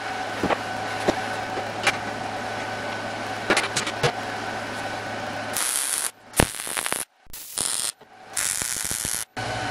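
MIG welder laying short tack welds on sheet steel: about half a dozen brief bursts of crackling, hissing arc in quick succession over the last four seconds. Before them, a steady machine hum with a few light clicks.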